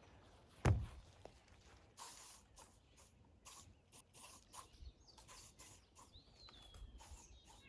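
Aerosol bug spray hissing in a series of short bursts, after a single thump about a second in.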